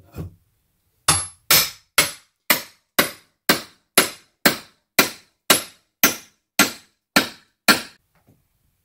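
Hammer striking a metal bar held against the top of a wooden door frame, a steady run of fourteen sharp, ringing metal-on-metal blows about two a second, after a couple of lighter taps at the start. The blows drive the bar in to pry the old door frame loose.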